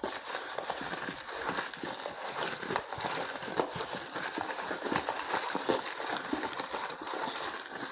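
A deck of cards being shuffled by hand: a continuous run of soft, rapid clicks and papery rustling.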